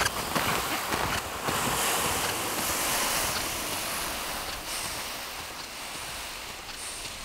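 Snowshoes crunching in snow and a plastic toboggan sliding over it, loudest at first and fading as they move away.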